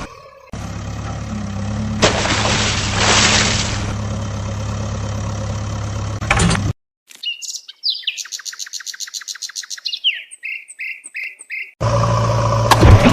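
Small motor of a DIY model tractor or thresher running steadily, cutting off abruptly after about six seconds. Then, against silence, a bird-like call: a fast trill of high notes followed by several slower repeated chirps. The motor sound comes back near the end.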